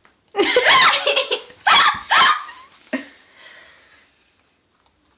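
A person with the hiccups laughing in loud bursts for about two and a half seconds, then trailing off.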